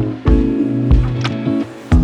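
Background music with a steady beat: low drum strikes under sustained pitched notes.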